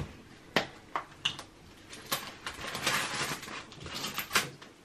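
Scattered light clicks and rustling from hands rummaging through small objects while searching for a coin, with a sharper click near the end.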